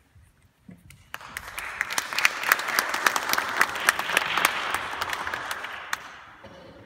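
Audience applauding as a young pianist comes up to the piano. The clapping starts about a second in and dies away near the end.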